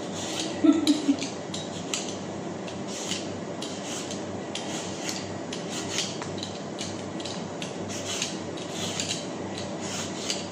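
A blade peeling the skin off a ripe mango: repeated short rasping scrapes, one stroke after another. A brief louder clatter about a second in.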